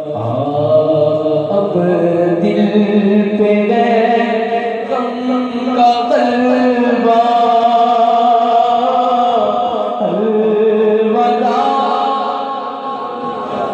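A naat, an Urdu devotional song bidding farewell to Ramadan, sung with long held notes that waver and bend.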